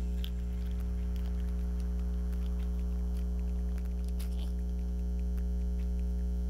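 Steady electrical mains hum with buzzing overtones from a faulty recording setup, a few faint clicks on top.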